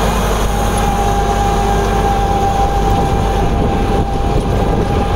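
Massey Ferguson 385 tractor's diesel engine running steadily under load, driving a rotavator that churns through the soil. A steady whine sits over the engine from about half a second in.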